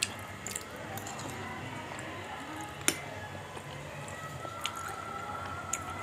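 Steel spoon clinking against a ceramic bowl of chickpea curry, a few sharp clinks with the loudest about three seconds in. Between them come soft, wet chewing and squishing sounds of eating.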